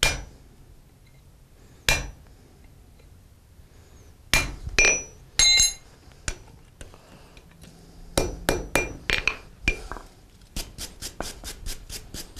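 Blacksmith's hammer striking punches and chisels into a red-hot horseshoe on an anvil, marking a decorative horse head's eye, eyebrow and eyelashes, each blow ringing metallically. Single blows at first, then clusters of strikes, and near the end a quick run of lighter taps, about five a second.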